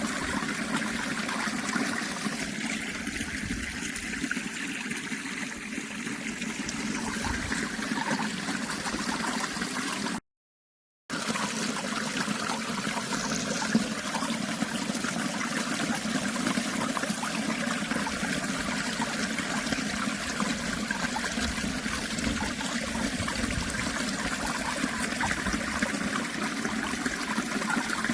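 Water in a stream flowing and trickling steadily, an even rushing babble. About ten seconds in it cuts out completely for under a second, then resumes unchanged.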